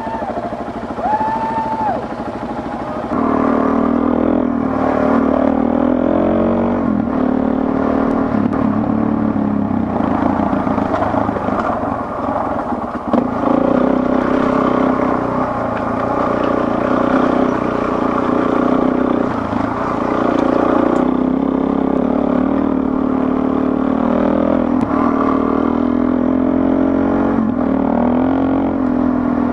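Dual-sport motorcycle engine idling, then from about three seconds in riding off along a dirt forest road, its pitch rising and falling as the throttle opens and closes through the gears.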